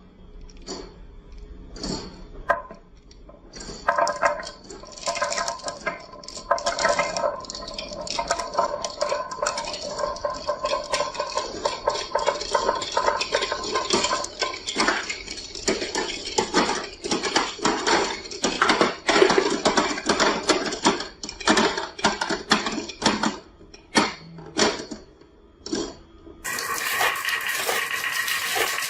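Many marbles rolling and clacking down a marble run track: a dense run of sharp clicks over a rolling hum, thickest through the middle and thinning out. Near the end it gives way suddenly to a steady, even sound.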